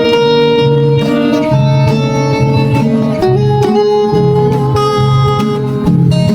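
Background music led by plucked guitar with a steady beat.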